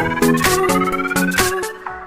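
Electronic dance music with a steady beat of about four strikes a second and a slowly rising synth tone; the bass notes drop out near the end.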